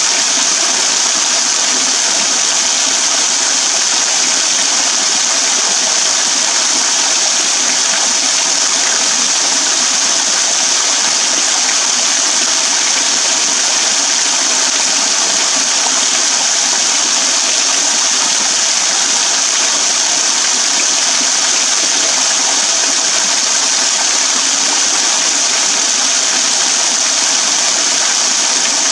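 Small waterfall pouring off a rock ledge, its water splashing steadily onto wet ground and a shallow pool in a constant bright hiss.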